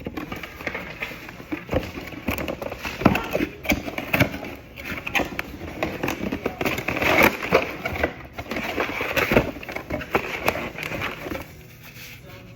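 Packaging being handled during an unboxing: irregular rustling and crinkling, with many small clicks and knocks.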